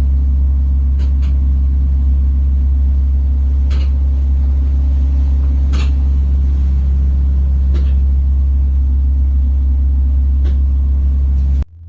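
Steady low engine drone, with a few faint clicks over it; it cuts off suddenly near the end.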